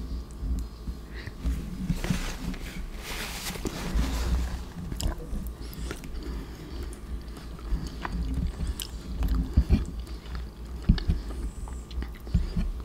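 Close-miked chewing of soft macaroni and cheese, with many short wet clicks and smacks of the mouth. A brief hiss comes about two seconds in.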